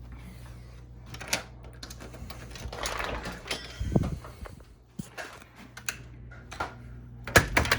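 Handling and footstep noises from someone putting on shoes and walking off: scattered clicks, knocks and rustling, with a louder clatter of knocks near the end. A low steady hum underneath drops away about halfway through.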